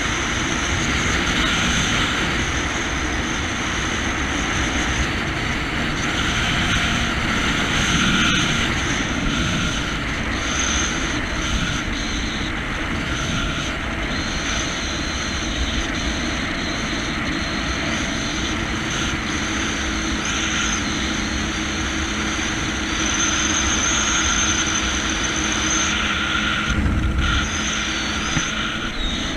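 Jet ski running steadily under way, its engine drone mixed with the rush of water past the hull. Near the end comes a brief deeper rumble.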